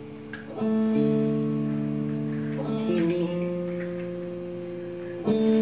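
Live ensemble music with guitar: a new chord is struck about every two and a half seconds and rings on between changes.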